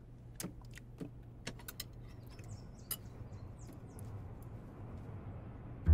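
Chopsticks clicking and tapping against a plate while picking at thin pancakes: a scatter of small, sharp clicks over a steady low room hum.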